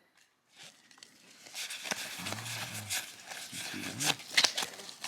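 Trading cards being handled and flipped through, with soft rustling and a few sharp taps, the loudest about four and a half seconds in. A low murmured voice comes in twice, briefly.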